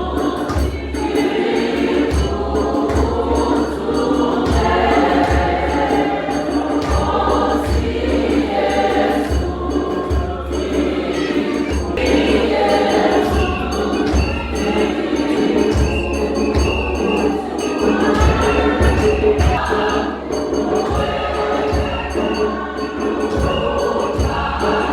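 Choir singing gospel music over a low, steady drum beat.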